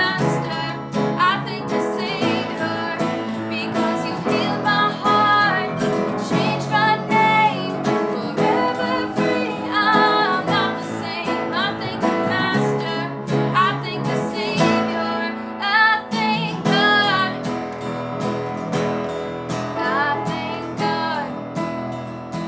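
Worship song with strummed acoustic guitar and a female voice singing.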